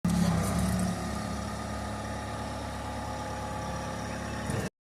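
Bobcat T64 compact track loader's diesel engine running, louder for about the first second and then settling to a steady idle. The sound cuts off suddenly near the end.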